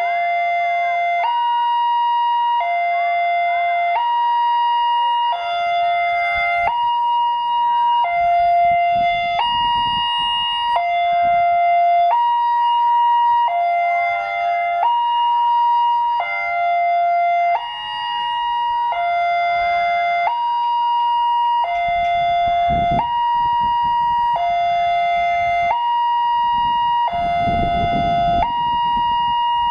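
Railroad level-crossing warning alarm sounding from the loudspeaker on the crossbuck: an electronic two-tone signal, a high note and a lower note alternating steadily, while the barrier is down to hold road traffic for an oncoming train. A low rumble rises under it twice near the end.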